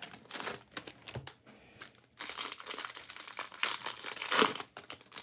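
Plastic crinkling and rustling as trading-card packs and cards are handled, in irregular spurts with a short pause about a second and a half in.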